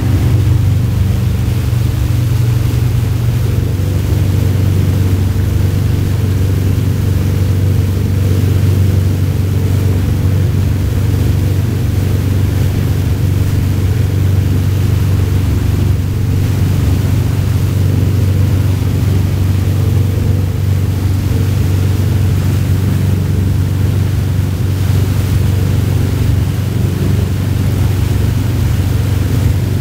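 A tow boat's engine droning steadily at cruising speed, over the rushing, churning water of its wake.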